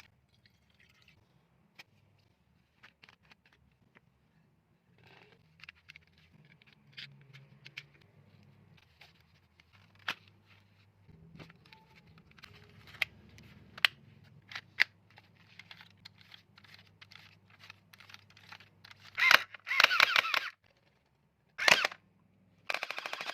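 Toy gel blaster being handled with scattered mechanical clicks and snaps, then firing loud rapid bursts near the end.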